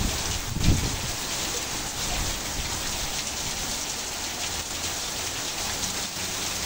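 Heavy rain pouring steadily onto open dirt ground and standing water: an even, dense hiss, with a brief low rumble about a second in.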